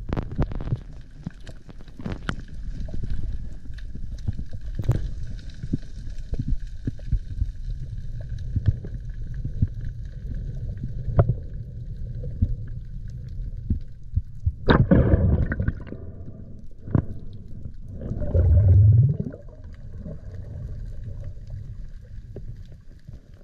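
Underwater sound picked up by a camera in its housing: a steady low rumble with scattered clicks and taps, and two loud bursts of gurgling water, about fifteen and eighteen seconds in.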